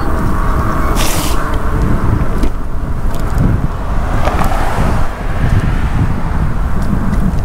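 Wind buffeting the handlebar camera's microphone on a moving e-bike, a constant low rumble, with road traffic beneath it and a short hiss about a second in.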